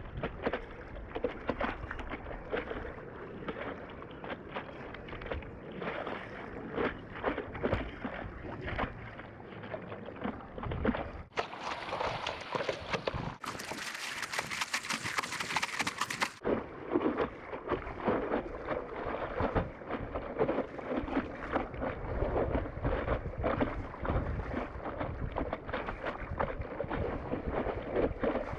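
Water sloshing and splashing close by as arms paddle a surfboard prone through choppy sea, in short irregular strokes. About halfway through, a harsher hiss takes over for a few seconds.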